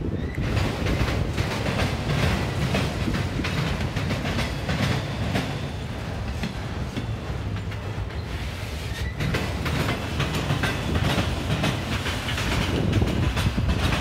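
A freight train of autorack cars rolling past, a steady rumble with wheels clacking over rail joints.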